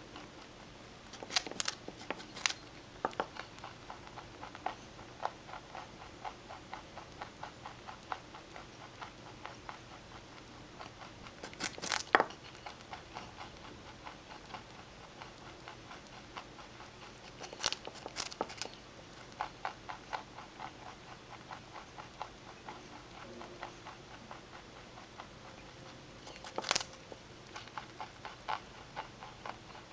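Mini rex rabbit chewing baby carrots: a quick, steady run of small crunching clicks, with louder crunches at a few moments, about a second in, near the middle, twice around two-thirds through and near the end, as she bites off fresh pieces.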